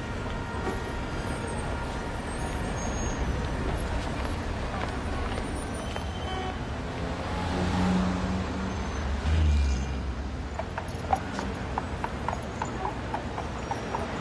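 Busy city street traffic: cars and buses passing, with an engine swelling and a heavy low rumble near the middle. In the last few seconds comes a steady clip-clop of a horse's hooves walking on the pavement.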